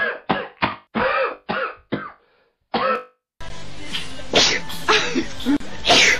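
A person coughing in a quick run of about eight short coughs, stopping about three seconds in. Then, against a steady hiss, a couple of sharp sneezes.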